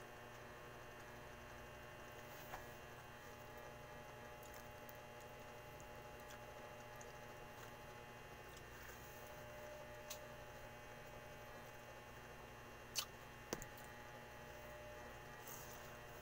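Quiet room with a steady electrical hum and a few faint clicks and taps from eating by hand, the sharpest two close together near the end.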